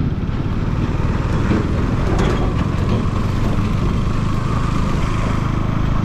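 Motor vehicle engine running steadily while on the move, with road and wind noise over it.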